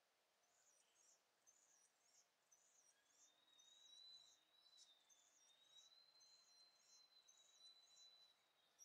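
Faint outdoor chirping: a high call repeated about twice a second, joined about three seconds in by a long steady high-pitched tone.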